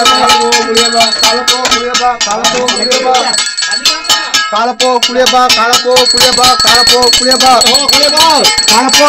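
Brass hand bell rung rapidly and without pause, as in a ritual prayer.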